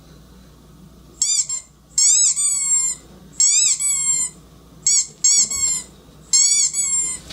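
Recorded squeaky dog toy played back, squeaking in repeated runs of high squeals that start about a second in.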